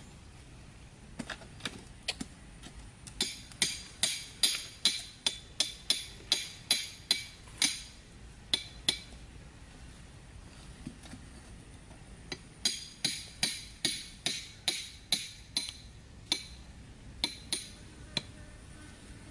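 Hatchet blows knocking on a wooden stake to drive it into the ground, in two runs of about two to three blows a second with a pause between them. Each blow is a sharp knock with a bright, clinking ring.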